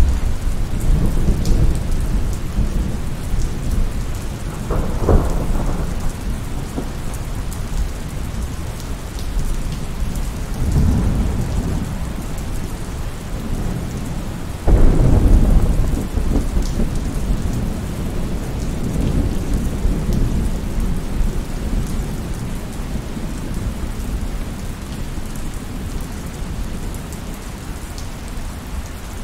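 Heavy rain falling steadily, with rolling thunder. A rumble starts right away, there is a sharp crack about five seconds in, and the loudest thunderclap breaks about halfway through and rumbles on after it.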